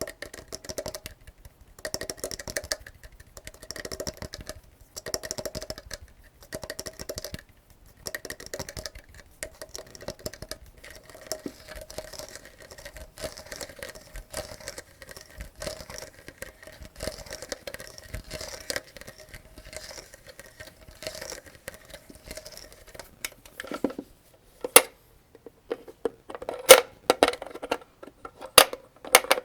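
7.62×39 mm cartridges being loaded one at a time into an AK-47 75-round drum magazine: a short cluster of metallic clicks with a light metallic ring about once a second. Near the end come a few louder, sharper clacks.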